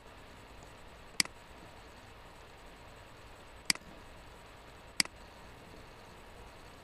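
Three sharp computer-mouse clicks, the first about a second in and the last two close together near the middle, over faint steady room hiss.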